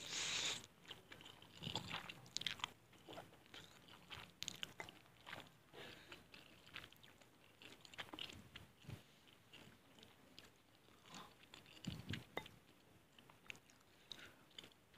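Close-miked mouth sounds of eating fried instant noodles: a loud slurp at the start, then chewing with many small wet clicks and smacks.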